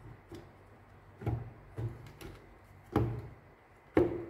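Light knocks and clicks of a circuit board being handled and set against a bread maker's plastic housing, about six of them, the sharpest near the end.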